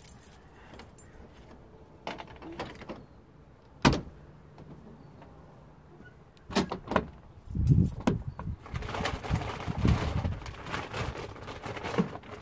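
Truck storage compartment being opened and rummaged through: a few clicks, a single sharp knock about four seconds in, then thumps and rustling of things being moved about inside.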